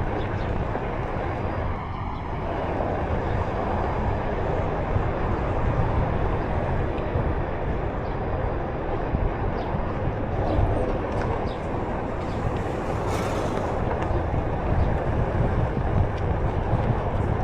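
Steady rushing noise with a heavy low rumble, from wind on the microphone and the road noise of a Onewheel electric board rolling along pavement.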